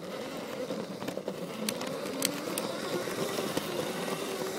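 Lego train's small electric motor whining steadily as the locomotive runs along plastic track, heard from on board, with a few sharp clicks.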